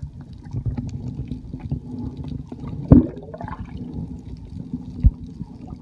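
Water heard by a camera held underwater: a low muffled rumble of moving water with gurgles and small clicks, and two sharp knocks, the loudest about three seconds in followed by a short rising gurgle, the other just after five seconds.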